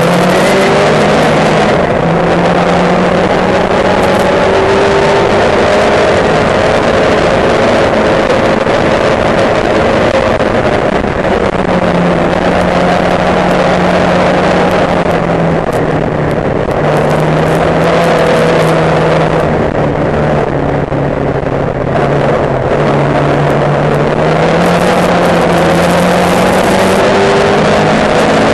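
Race car engine at racing speed, heard from inside the car over wind and road noise. Its note rises and falls as it accelerates and eases off, dropping briefly a few times.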